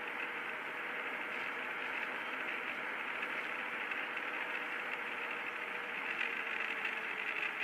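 Steady road noise inside a moving car's cabin: tyres on the road and the engine running, with a faint steady hum.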